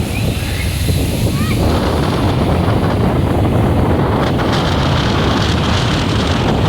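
Strong wind buffeting the microphone with a heavy rumble, over the wash of sea surf breaking on the shore.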